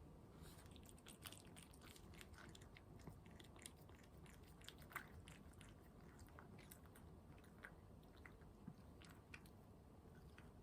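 A cat chewing food: faint, irregular crunchy clicks, several a second.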